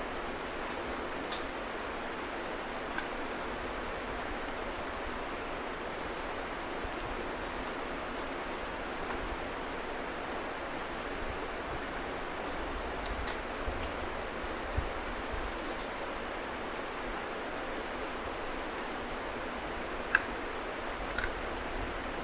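A bird's short, high-pitched falling chirp repeated about once a second, over a steady hiss.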